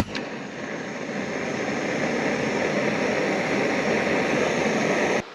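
Jetboil camping stove lit with its push-button igniter: a sharp click, then the gas burner catches and burns with a steady rushing sound. The sound builds a little over the first couple of seconds and cuts off suddenly near the end.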